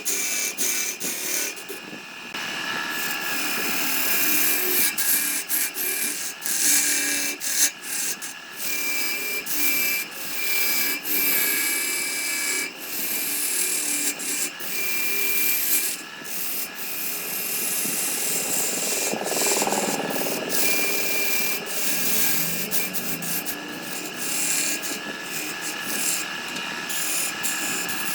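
Wood being scraped and rubbed by a tool: a rasping noise, broken by many short gaps, with a thin high tone that comes and goes.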